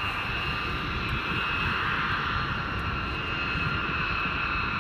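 Jet engine of an F-35B running on the aircraft carrier's deck before take-off: a steady high whine over a low rumble.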